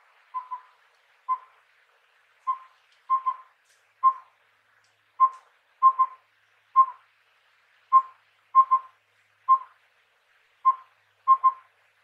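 Collared owlet (collared pygmy owl) singing its four-note whistled phrase, "wüp-wüwü-wüp": a single note, a quick double note, then a single note, all on one pitch. The phrase repeats about every three seconds, four times over.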